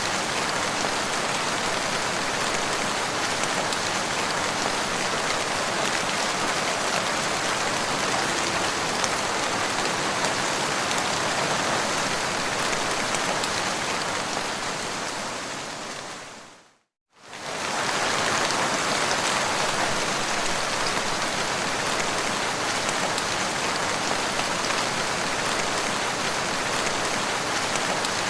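Steady rain falling, a dense even hiss. About two-thirds of the way through it fades out to a moment of silence and swells back in.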